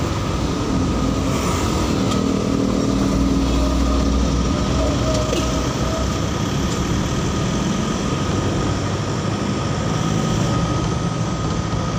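Vehicle engine and road noise while driving along a street, with a steady high whine running under it. The low engine note is heavier from about two to five seconds in as the vehicle pulls away after turning.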